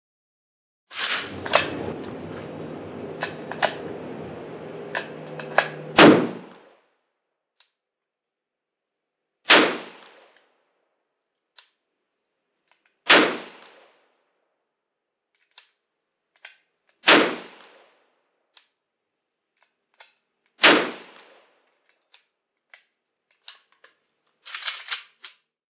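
Gunshots at a range. For the first few seconds there are sharp cracks over a steady droning noise, ending in the loudest shot about six seconds in. Then single shots from a Smith & Wesson M&P15-22 pistol, each a few seconds apart, with faint clicks between them, and a quick string of shots near the end.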